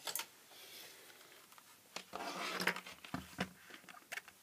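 Handling noise from a digital multimeter being brought over and set down on a desk: a few light clicks and knocks, with a rustling scrape about two seconds in.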